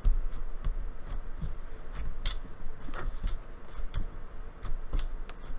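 Butter slime being squished and stretched in the hands, giving irregular small clicks and pops over soft handling noise.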